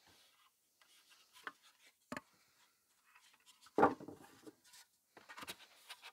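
Polystyrene hive panels being handled and fitted together on a plastic pallet: a few soft knocks and rubbing sounds, the loudest about four seconds in.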